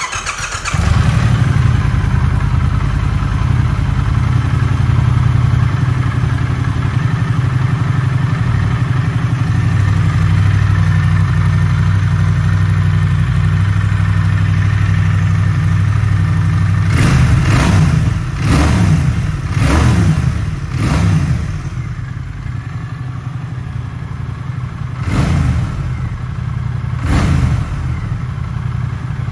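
Triumph Thruxton 1200 R's 1200 cc parallel-twin is started and catches at once, then idles steadily. From about two-thirds of the way through the throttle is blipped in a quick run of short revs, then twice more, and the engine drops back to idle between them.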